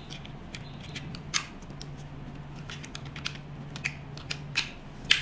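Sharp plastic clicks and taps as a roller tip is handled and snapped onto the small handpiece of a roller massage machine, with the loudest clicks about a second and a half in and just before the end. A faint low hum runs underneath.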